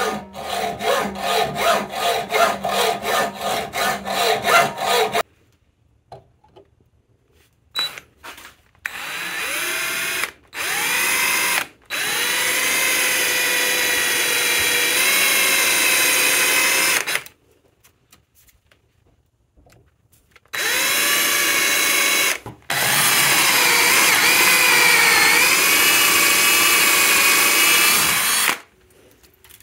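Hand hacksaw strokes, about two a second, for the first five seconds. Then an electric drill with a twist bit drills into a small metal part held in a bench vise, in several runs of a few seconds with short stops and a slight dip in pitch under load.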